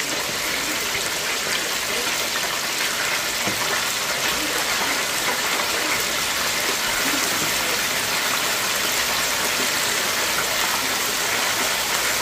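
Cornstarch-coated chicken wings deep-frying in the basket of an electric deep fryer: a steady sizzle of bubbling oil. This is the first of two fries.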